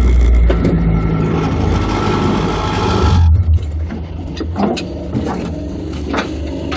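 Off-road 4x4 driving on a gravel track: its engine runs with a steady hum under a hiss of tyres on gravel. The hiss cuts off about three seconds in, and a few sharp knocks and rattles follow.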